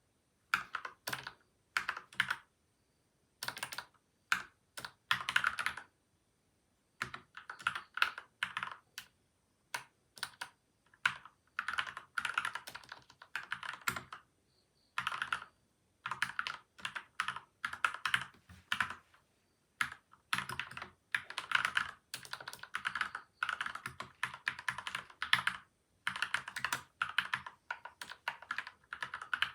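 Typing on a modded mechanical keyboard with lubed, tape- and foam-dampened switches: quick runs of keystrokes in bursts, broken by short pauses. The typing starts about half a second in.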